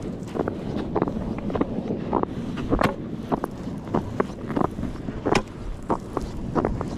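Footsteps on bare clear ice while an ice-fishing sled is towed behind on a tow bar, a steady scraping rumble broken by irregular sharp clicks and knocks.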